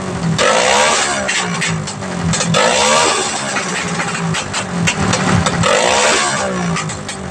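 Rusi Korak 110 mini bike's 110 cc single-cylinder engine through an open pipe, blipped about three times, each rev rising and falling back, with popping and crackling backfire in the exhaust.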